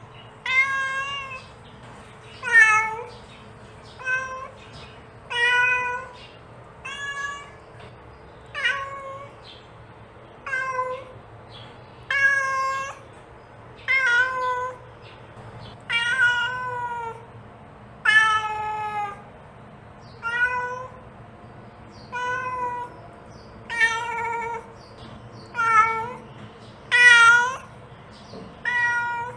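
Mother cat meowing over and over to call her kittens: about seventeen separate meows, one every second and a half to two seconds, several bending up and down in pitch.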